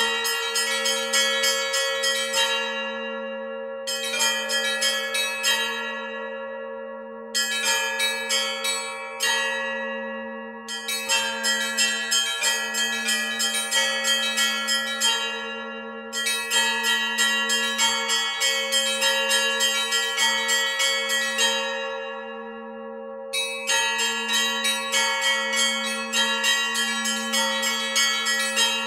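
Russian-style zvon on a monastery belfry: small treble bells are struck in fast rhythmic phrases, each broken off by a short pause, over the steady hum of the larger bells. The ringing follows the Novodevichy Monastery tradition on an ensemble that includes monastery-series bells modelled on 17th-century bells and cast by LITEKS.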